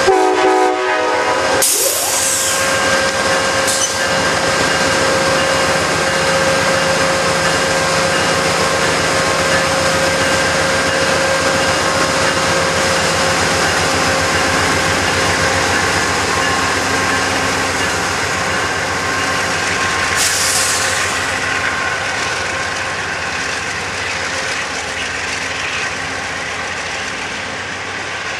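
Amtrak Genesis diesel locomotive and bi-level passenger cars moving past at close range: a steady engine drone with rolling wheel and rail noise. A short horn blast at the very start, and two sharp hisses of air, about two seconds in and again near twenty seconds.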